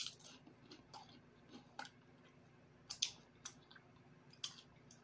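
A man chewing food close to the microphone, with a handful of faint, sharp wet mouth clicks and smacks spread through the chewing.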